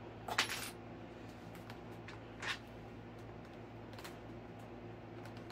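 A few light clicks and taps of hands working a foam model jet's wing against its fuselage, trying to make it line up. The loudest comes about half a second in and another about two and a half seconds in, over a steady low hum.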